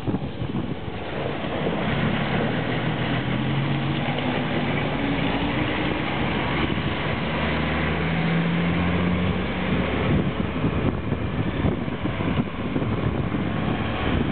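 Motorbike ride at speed: wind rushing over the microphone and engine noise, with a low engine hum that shifts in pitch between about two and ten seconds in.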